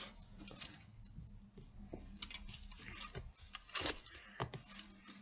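Faint handling noises: a few light taps and rustles as a puppet is moved about a cardboard set covered in kitchen foil. The clearest taps come about two, four and four and a half seconds in.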